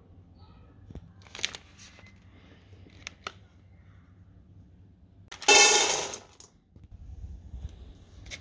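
Plastic pet-food packaging being handled: light crinkles and a couple of sharp clicks, then one loud rasping rip of plastic lasting about a second, a little past halfway.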